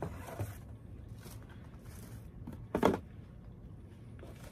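Cardboard boxes and packed items being handled: faint rustling and shuffling, with one short, loud bump about three seconds in.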